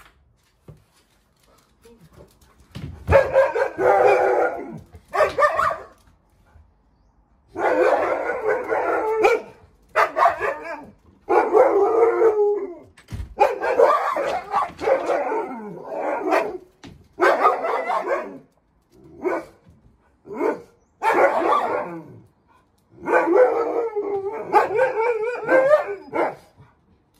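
Alaskan Malamute howling and barking in repeated loud bouts of a second or two each, starting about three seconds in. It is a protective alarm at a stranger on ladders next door.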